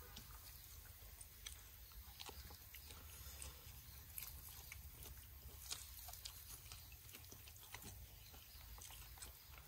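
Faint eating sounds: a person chewing a mouthful of braised quail wrapped in herbs, with scattered small clicks.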